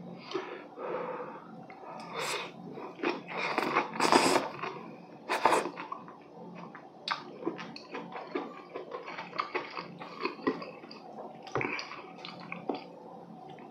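Close-miked slurping of glass noodles, loudest a few seconds in, followed by wet chewing with small mouth clicks and smacks.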